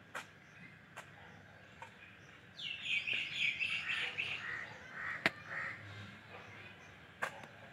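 Long-handled hoe chopping into turf and soil in sharp single strikes, about one a second. A bird calls in a run of rapid notes for about three seconds from about two and a half seconds in, the loudest sound.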